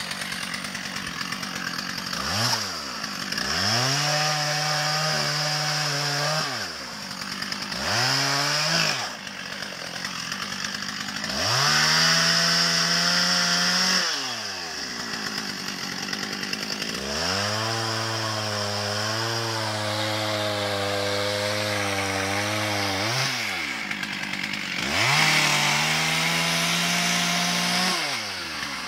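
Two-stroke chainsaw cutting through a log, revved up and held at full throttle for a few seconds at a time, then dropping back to idle, about five times over. One longer pass, about two-thirds of the way through, holds at a lower pitch.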